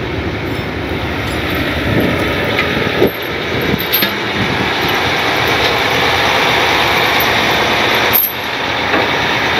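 Heavy truck's diesel engine running steadily close by, with a couple of sharp knocks about three and four seconds in.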